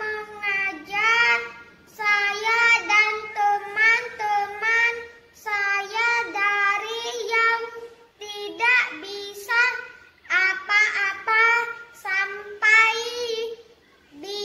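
A young boy singing unaccompanied, in short phrases of held notes separated by brief pauses.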